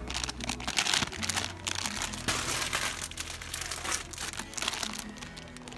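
Clear plastic packaging of squishy toys crinkling and rustling as the bagged packages are handled on their hooks.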